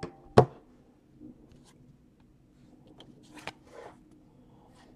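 A single sharp knock, then light clicks and rustles of a trading card being picked up off a tabletop mat and handled.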